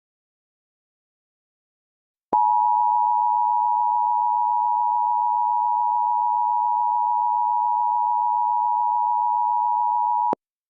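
Emergency Alert System two-tone attention signal: two steady tones (853 and 960 Hz) sounded together. It starts abruptly about two seconds in, holds for about eight seconds and cuts off sharply. It marks the start of an emergency alert message.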